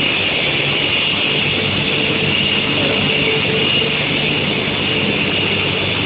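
Steady running noise of an induction quenching and tempering line for square steel bar, its roller conveyor turning, with a steady high whine and a low hum over it.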